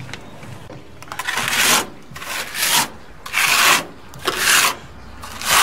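Steel trowel scraping stucco onto cement board, pushed on hard: a rough rubbing scrape in about five strokes, roughly one a second, starting about a second in.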